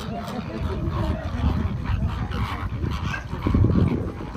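A large flock of greater flamingos calling: many overlapping short honks and gabbling calls, over a low rumble that swells near the end.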